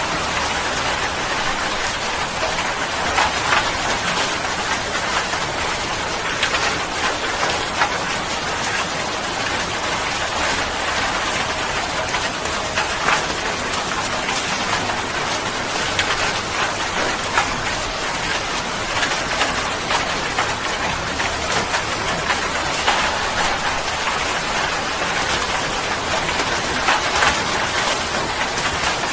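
Steady rain falling and pattering on a surface, with many close individual drops standing out against an even hiss.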